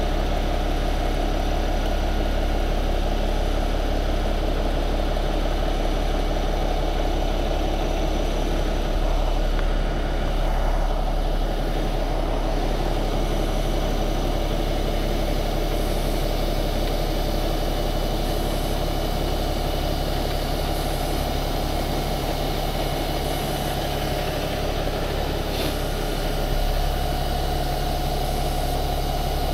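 Heavy diesel truck engine running steadily with a deep, constant hum while a stuck dump truck is winched out of the mud.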